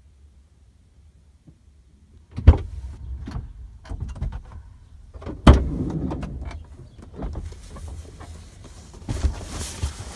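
A series of irregular knocks and clunks, two of them sharp and loud, with smaller clicks and rustling between them.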